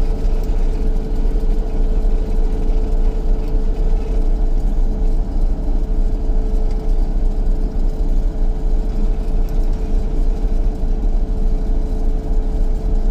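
Claas Dominator 108 SL combine harvester running under load while its pickup header feeds a barley swath, heard from inside the cab: a steady, even drone of engine and threshing machinery with one constant hum riding over it.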